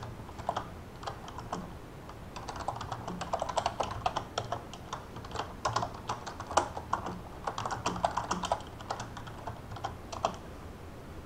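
Typing on a computer keyboard: irregular bursts of quick keystrokes that stop near the end.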